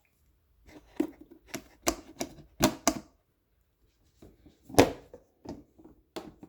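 Hard plastic parts of a coffee maker being handled and fitted, making a run of irregular clicks and knocks, the loudest about five seconds in.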